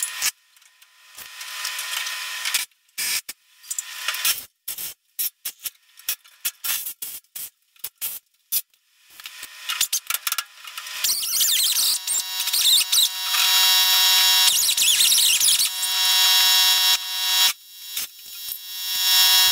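Angle grinder working the steel floor brace of a 1963 Chevy C10 cab. In the first half the sound comes in short, choppy bursts with sudden gaps. For the last eight seconds the grinder runs steadily with a high whine.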